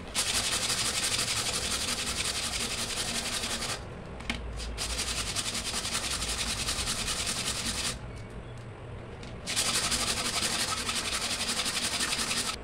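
A thin PVC pipe ring rubbed rapidly back and forth by hand on sandpaper to smooth its cut edge: continuous scratchy sanding in three spells, broken by two short pauses.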